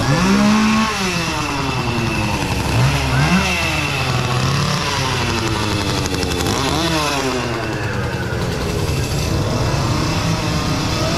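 Chainsaws revving, the engine pitch climbing and falling back several times over a steady background din.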